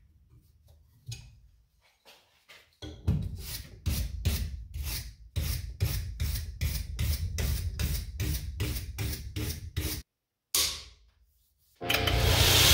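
Hand wire brush scrubbing a steel knife blade in quick back-and-forth strokes, about two to three a second. Near the end a belt grinder starts up with a loud, steady run.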